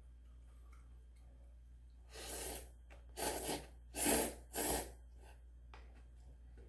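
A person slurping spicy instant ramen noodles in four short, loud, airy pulls, close to the microphone.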